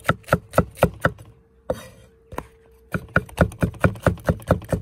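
Chef's knife thinly slicing green bell peppers on a wooden cutting board, the blade knocking the board about four times a second. The strokes stop for about a second and a half in the middle, with two single strokes, then start again.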